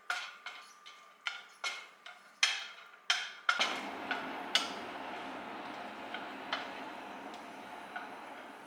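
Hard kitchen items knocking and clicking, about eight sharp knocks in quick succession, then a steady rushing noise starts about halfway through with a few faint ticks over it.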